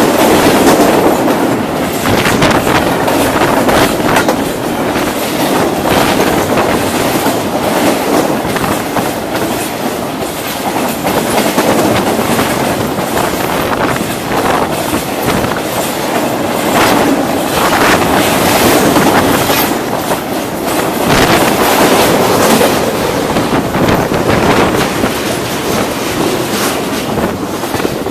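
Double-stack container train's well cars rolling past at speed: a steady rumble with the repeated clatter of steel wheels over rail joints, which eases as the last car passes near the end.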